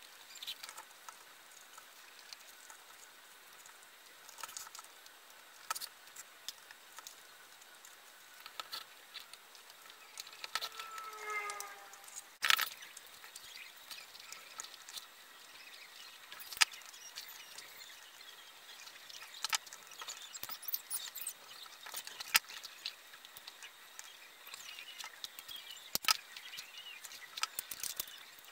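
Hand-stitching leather: thread drawn through the stitching holes with light rustling and scratching, and scattered sharp clicks and taps as the piece and tools are handled. A brief squeaky tone partway through, with a sharp click just after it.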